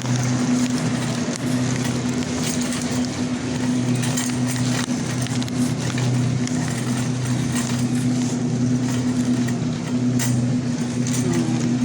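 Grocery-store background noise: a steady low electrical hum under a continuous rolling, rattling noise with a few faint clicks.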